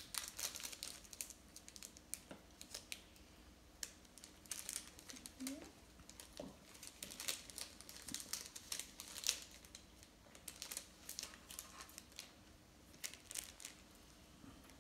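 Irregular light crinkling and crackling of paper and craft-foam pieces being handled and pressed with a glue stick, with two faint short squeaks a little past the middle.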